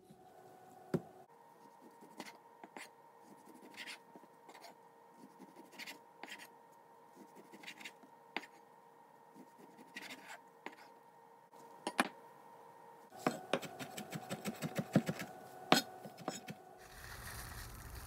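Kitchen knife slicing raw beef on a bamboo cutting board: soft scraping strokes with irregular sharp taps of the blade on the board, then a quicker run of taps about thirteen seconds in. A steady hiss takes over near the end.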